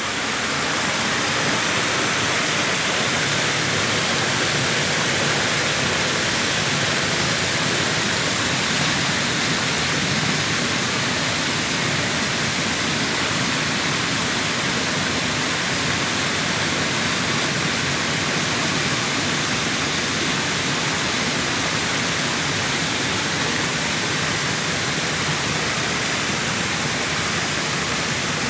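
Steady, even rushing noise that fades in at the very start.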